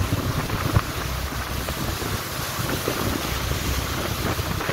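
Wind buffeting the microphone over the rush of water along the hull of a motor yacht under way through moderate waves, with a steady low rumble underneath. A short thump stands out just under a second in.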